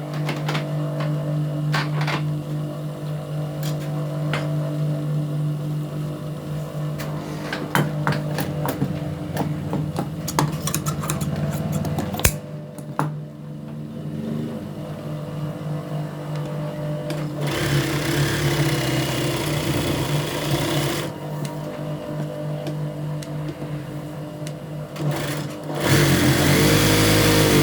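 Juki lockstitch sewing machine sewing a test seam after its hook timing was reset, running in spurts with clicks and a steady hum. There are two longer, louder runs, one past the middle and one near the end.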